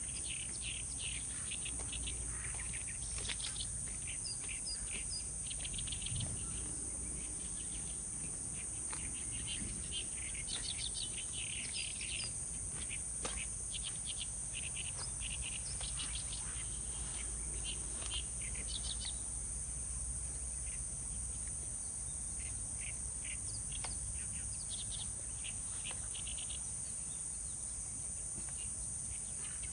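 Steady high-pitched insect drone, with bunches of quick bird chirps coming and going over it and a faint low hum beneath.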